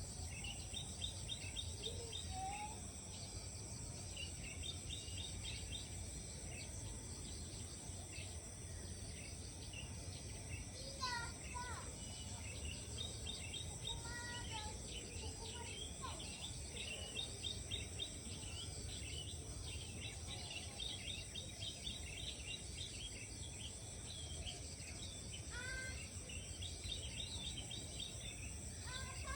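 Birds chirping and trilling in quick repeated notes, with a few lower whistled calls, over a steady high-pitched insect drone and a constant low rumble.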